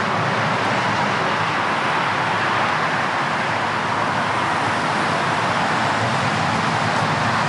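Steady, even rushing background noise with no distinct knocks or events.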